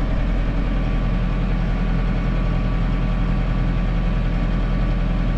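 Case IH Farmall 110C tractor's diesel engine idling steadily, heard from inside the cab.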